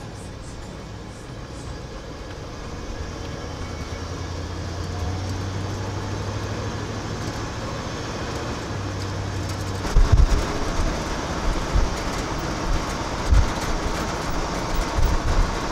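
A 1977 Ford F-250 pickup's engine running, heard from inside the cab, growing steadily louder as the truck pulls away and gathers speed. About ten seconds in, road noise rises and irregular low thumps of wind buffeting the microphone join it.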